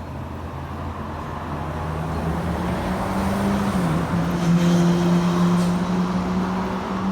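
A car engine running nearby, a steady hum that grows louder over the first few seconds. Its pitch dips briefly about four seconds in, then holds steady.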